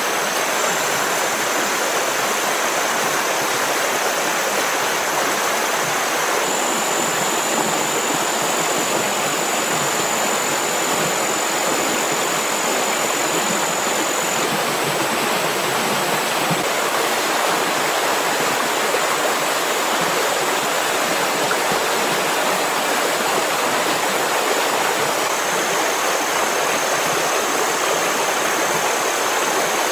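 Steady rushing of flowing water, like a stream, unchanged throughout, with thin high steady tones above it that step to a new pitch a few times.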